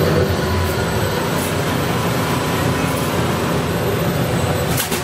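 Steady rumble and hiss of a Radiator Springs Racers ride vehicle rolling along its track, heard from inside the car.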